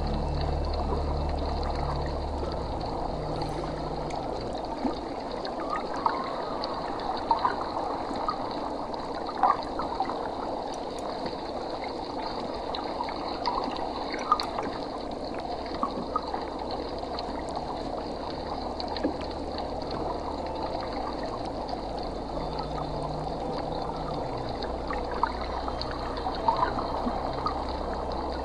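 Aquarium water trickling and bubbling steadily, with scattered small bubble pops.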